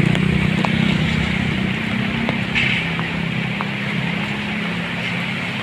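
A road vehicle's engine running close by, fading over the first few seconds as it passes and moves away, over the steady hiss of heavy typhoon rain.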